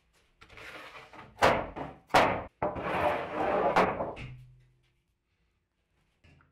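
Rough-sawn oak and ash boards being laid on a wooden workbench: wood scraping on wood, with two sharp knocks about a second and a half and two seconds in, then a longer scrape as a board slides across the stack.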